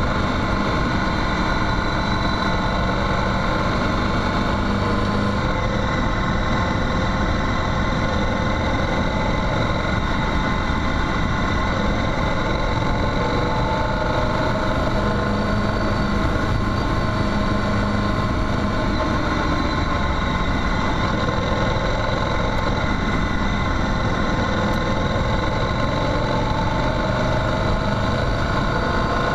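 Motorcycle engine running steadily as the bike rides along a gravel dirt track, at an even pace throughout.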